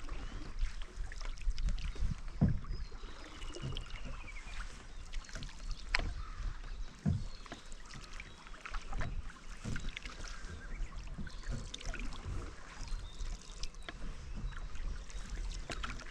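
Canoe being paddled on calm water: irregular paddle strokes and splashes, with low knocks now and then. A few faint bird chirps are heard in the background.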